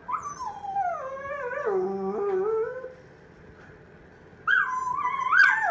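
Coyote howling: a long howl that slides down in pitch with a wavering tremble, then after a short pause a second, shorter call near the end.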